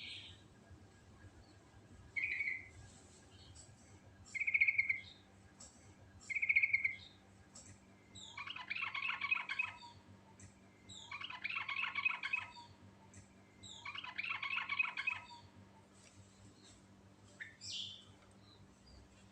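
Yellow-vented bulbul (trucukan) singing: three short bubbly phrases about two seconds apart, then three longer runs of rapid chattering notes, each about a second and a half.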